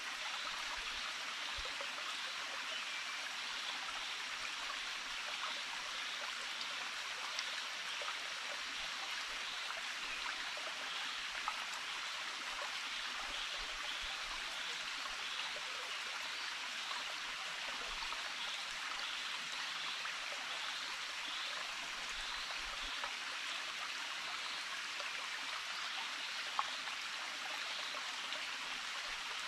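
Stream water running steadily, with a few faint clicks.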